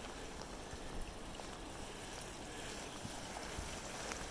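Steady rushing of water from a small stream, with a few faint knocks.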